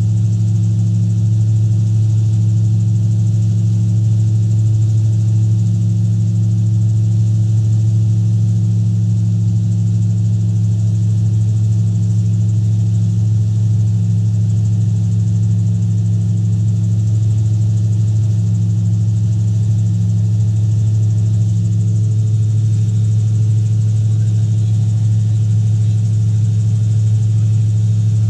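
Gyrocopter engine and propeller in steady cruise flight, a constant low drone heard from inside the cockpit.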